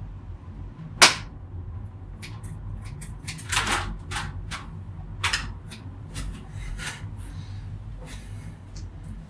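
Irregular sharp clicks, snaps and short scrapes from cutting and handling cables, with the loudest snap about a second in and a longer scrape a little after three seconds, over a steady low hum.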